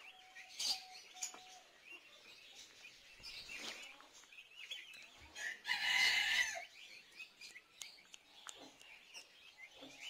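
A flock of young turkey poults peeping and chirping continually, with high, short calls scattered throughout. About six seconds in, one louder, harsh bird call lasts about a second.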